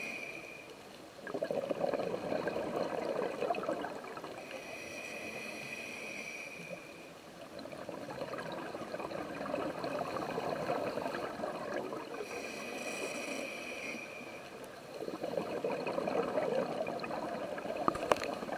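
Scuba diver breathing through a regulator: a short hissing inhale with a thin whistle, then a longer rush of bubbling exhaust bubbles, repeating about every six seconds, three breaths in all.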